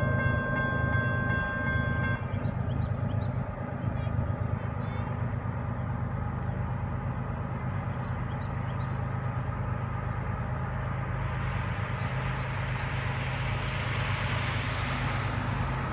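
A distant CSX locomotive horn sounds a steady chord that stops about two seconds in. Then comes the low rumble of the approaching train, with a rushing noise that grows over the last few seconds as it nears. Insects chirp in even pulses throughout.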